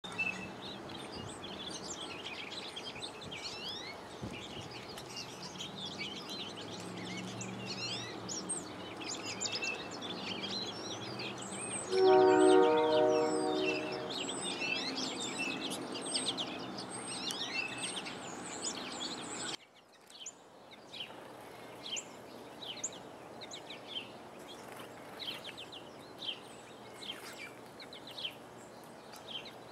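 A flock of small birds chirping busily with many short calls. A low rumble lies under the first two-thirds and stops abruptly about twenty seconds in. Near the middle a distant horn sounds steadily for about two seconds, the loudest sound here.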